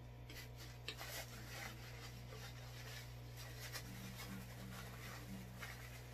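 Faint chewing and mouth sounds of someone eating pizza, with soft scattered clicks and rustles as a piece of crust is pulled apart by hand, over a steady low electrical hum.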